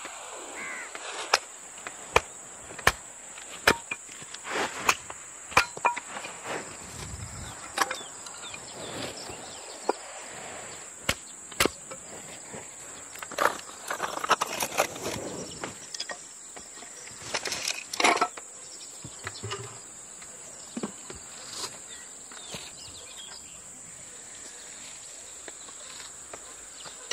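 Hatchet strikes splitting kindling on a wooden chopping stump, a sharp crack about once a second for the first several seconds, then scattered knocks and clatter of the split wood being handled. A steady high insect drone runs underneath.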